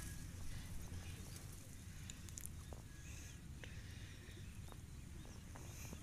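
Faint outdoor field ambience: a steady low rumble with a few faint ticks.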